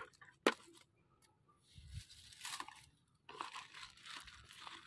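Woven plastic feed sack rustling and crinkling as it is pulled back off a wire-mesh trap cage, in short patches. There is a sharp click about half a second in and a dull thump near the middle.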